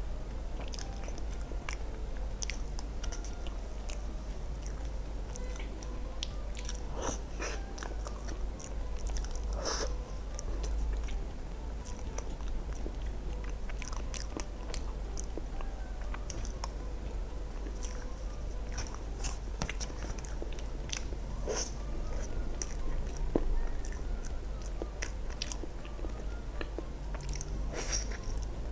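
A person eating dessert, chewing with many short wet mouth clicks and smacks throughout, over a steady low hum.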